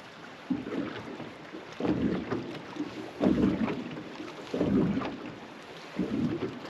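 Small waves lapping and slapping against the hull of a boat in irregular splashes about a second apart, with some wind on the microphone.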